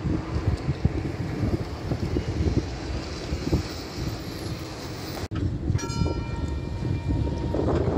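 Tram passing with a low rumble and wind buffeting the microphone. After a cut about six seconds in, a single bell-like ring of several clear tones sounds once and fades, the higher tones dying first: a tram's warning gong.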